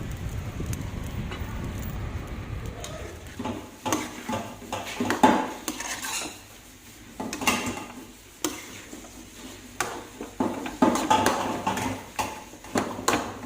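Dishes and metal cutlery clinking and clattering, in irregular knocks with short ringing, starting a few seconds in. A low rumble fills the first few seconds.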